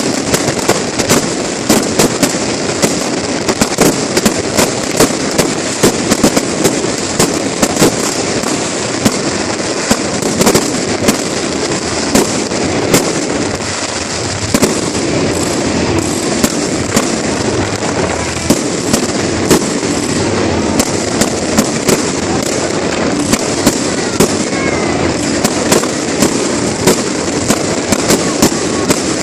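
Aerial fireworks display going off without a break: a dense, continuous crackle and rumble, punctuated by sharp bangs several times a second.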